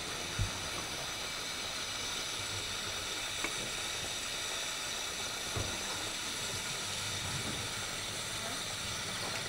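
Steady hiss of steam from a standing 15-inch-gauge steam locomotive in steam, with a few faint knocks.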